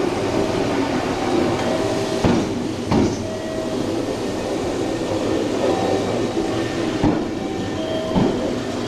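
JR 103 series 1500 electric train rolling slowly into the platform. The steady running noise carries brief whining tones, and the wheels knock sharply over rail joints four times.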